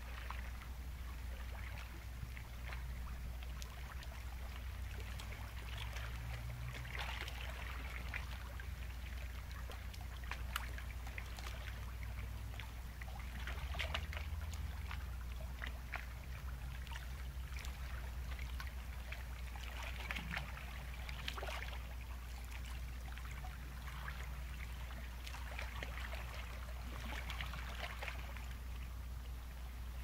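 Sea waves breaking and washing in against the shore, swelling about every six or seven seconds with fizzing, crackling surf over a steady low rumble.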